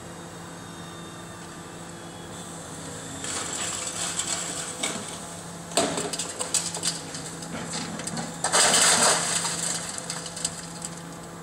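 Demolition excavator's engine running steadily while its arm breaks into a brick house's walls and roof timbers: crunching and cracking begin a few seconds in, with a sharp crack about halfway and the loudest crash of breaking, falling debris about two-thirds of the way through.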